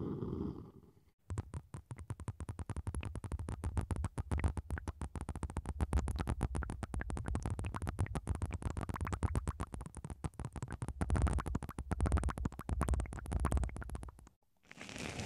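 Low rubbing from wooden spoons on binaural microphone ears for about a second, then a short pause. After that comes a long run of rapid, irregular wet crackling and popping from syringes of blue liquid being squeezed out at the microphone ears, which stops a second before the end.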